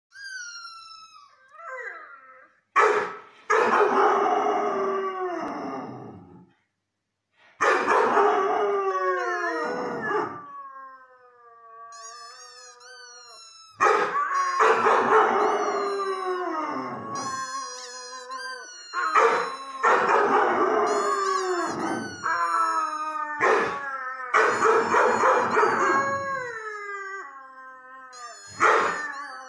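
Irish Red and White Setter howling over and over. Each long howl starts abruptly and slides down in pitch, with softer wavering tones in the pauses between howls.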